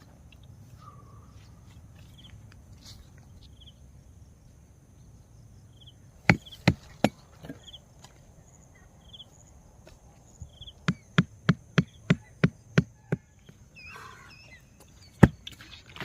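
Sharp knocking strikes on wood during shelter setup: three blows, then a quick run of about eight at roughly three a second, then one more. Insects chirp faintly and steadily in the background.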